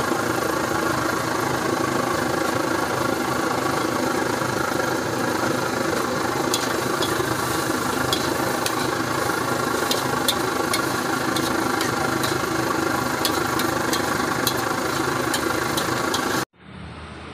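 Steady roar of a gas wok burner under a steel wok during stir-frying. From about six seconds in a metal ladle clinks and scrapes against the wok again and again. The roar cuts off abruptly near the end.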